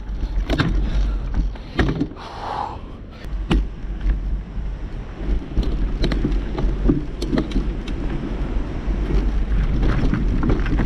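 Mountain bike rattling and knocking over rough, rocky trail, with a steady wind rumble on the microphone.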